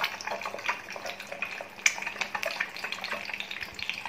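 An egg frying in hot oil in a frying pan: the oil sizzles and crackles steadily with many small pops, one sharper pop about two seconds in.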